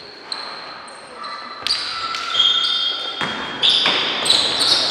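Basketball game play on an indoor court: the ball bouncing, with short high-pitched squeaks at different pitches, growing busier from about a second and a half in, and voices in the hall.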